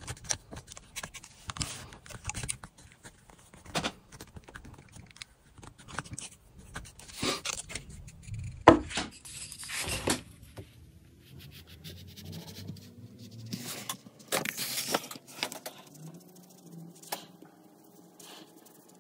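Irregular scraping, rubbing and clicking of hand work with tools and materials, with a sharp knock about nine seconds in.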